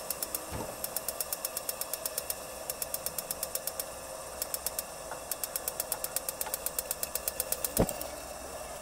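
Electric spark igniter of a Coleman NorthStar InstaStart petrol pressure lantern clicking rapidly, about ten sparks a second, in several runs with short pauses, over a faint steady hiss. A soft thud about eight seconds in as the fuel catches and the lantern lights, and the clicking stops.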